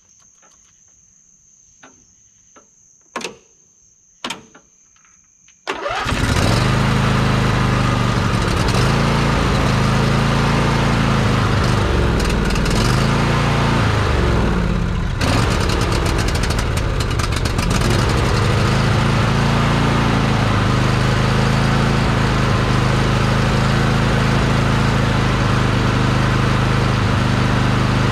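John Deere D170 riding mower's V-twin engine cranking and starting about six seconds in after two sharp clicks, then running steadily with its pitch rising and falling for several seconds before it settles. It is the test run after debris was flushed from the fuel tank's pick-up tube.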